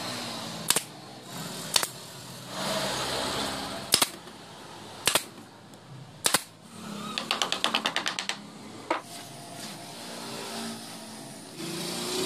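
Pneumatic nail gun firing into plywood: sharp single shots about a second apart, then a quick rattle of about a dozen clicks past the middle, and one more shot.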